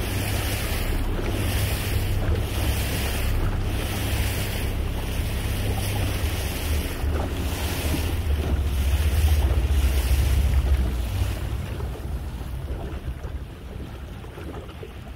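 Small fishing boat under way at sea: wind buffeting the microphone and water rushing past the hull over a low rumble, the hiss swelling about once a second. The rumble fades over the last few seconds.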